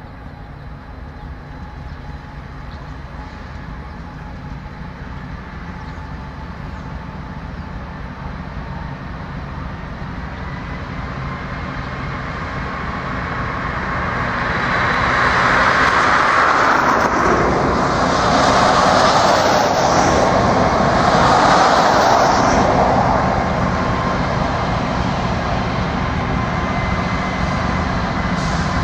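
Diesel locomotives of an empty ballast train approaching, a steady low engine drone that slowly grows louder. About halfway through, a broad hiss swells up in a few waves for several seconds, louder than the engines, then eases.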